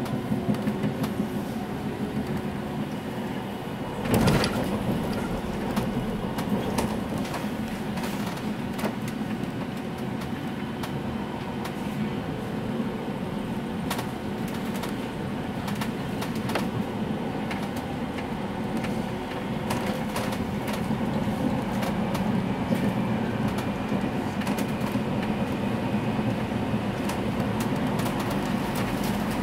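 Tram running along its track, heard from inside the car: a steady rumble of wheels on rails with a low hum, light clicks over the track, and one sharp knock about four seconds in.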